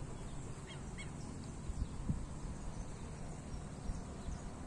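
Outdoor background with a steady low rumble, a few faint bird chirps about a second in, and a few soft thumps.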